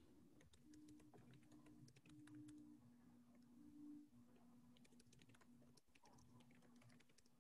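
Faint typing on a computer keyboard: scattered soft key clicks over a low steady hum.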